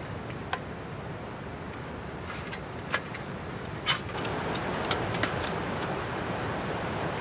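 Thin steel plates of a flat-pack fire pit clinking together as they are handled and set out, about five sharp metallic clinks, the loudest about four seconds in, over a steady hiss that grows a little louder around the same time.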